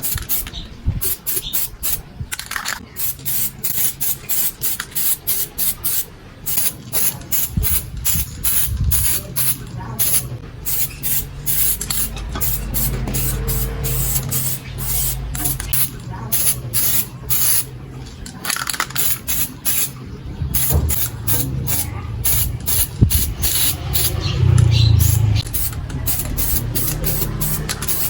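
Aerosol spray paint can sprayed in many short, quick bursts, over a steady low hum.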